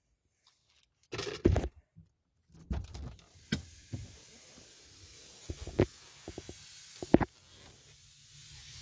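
Scattered clunks and knocks with rustling of someone getting out of a car, as the car door is handled and the handheld camera bumps about; the loudest cluster comes about a second in.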